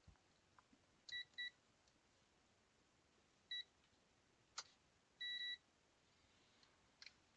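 Digital multimeter beeping while being set up to check a circuit board for shorts: two short beeps about a second in, another at about three and a half seconds, and a longer beep past five seconds, with a couple of sharp clicks between them.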